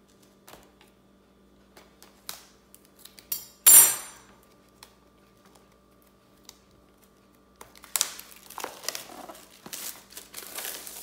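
A cardboard Apple keyboard box being cut open with a knife: light taps and clicks, then a short, loud tearing scrape about four seconds in. From about eight seconds, plastic wrap crinkles as it is peeled off a small box.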